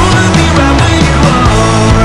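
Loud rock music with a steady drum beat and heavy bass.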